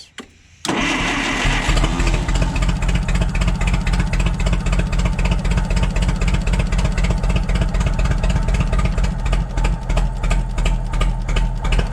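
Propane-fuelled four-cylinder forklift engine running at idle, cutting in suddenly less than a second in, with an uneven pulse: one cylinder is missing.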